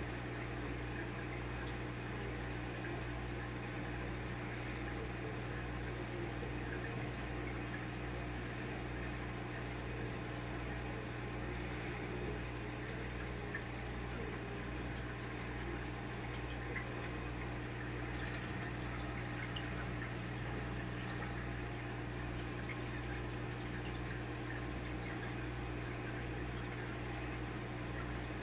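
Aquarium water bubbling steadily from an air bubbler, over a constant low hum of the tank's running equipment.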